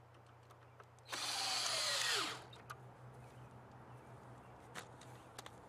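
Power drill with a 7/16 socket driving a fastener into a cedar log rocker: one run of about a second whose whine drops in pitch as it stops, followed by a few light clicks and knocks.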